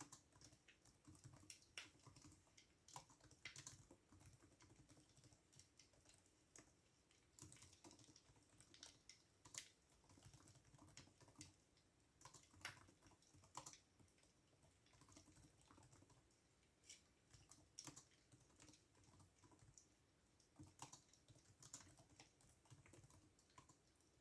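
Quiet typing on a computer keyboard: irregular keystroke clicks, sometimes in quick runs, with short pauses between.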